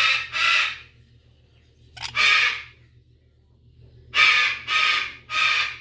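A parrot screeching loudly in harsh squawks: two at the start, one about two seconds in, then a quick run of three from about four seconds in.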